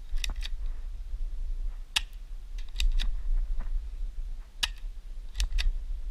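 Spring-powered ABS Sig Sauer P226 airsoft pistol being cocked and fired: about eight sharp plastic clicks and snaps, several in quick pairs. A steady low wind rumble on the microphone lies underneath.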